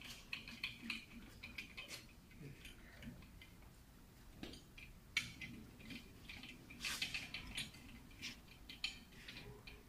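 Ratchet wrench on a long socket extension clicking faintly in short, irregular runs as the crankshaft main bearing cap bolts on an engine block are tightened.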